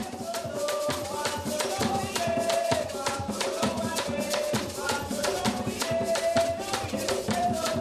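Live Saint Lucian Creole folk music: a ti bwa, a length of bamboo struck with sticks, beats a quick steady rhythm. Drumming and a voice singing a wavering melody go with it.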